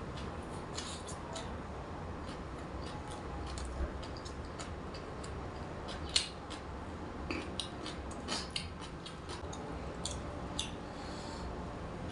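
A person eating close to the microphone: irregular short crisp clicks and crunches of chewing, with one louder click about six seconds in.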